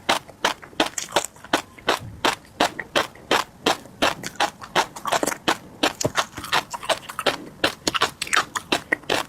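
Close-miked chewing of tobiko (flying fish roe), the tiny eggs popping and crunching as rapid, irregular crisp clicks, several a second.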